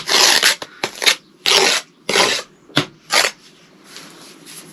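Bricklayer's trowel scraping and spreading sand-and-cement mortar onto the end of a concrete block. There are about five short scrapes with a sharp click among them, and it goes quieter over the last second or so.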